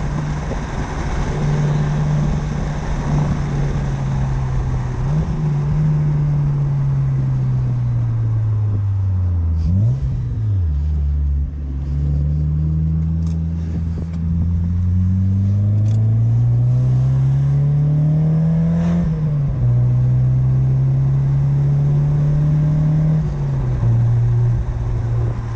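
A 1993 Mazda MX-5 Miata's 1.6-litre four-cylinder, through a Cobalt aftermarket exhaust, driven on the road: the revs hold, fall away, blip sharply about ten seconds in, then climb steadily under acceleration, drop at a gear change about two-thirds of the way through, climb again and fall once more near the end.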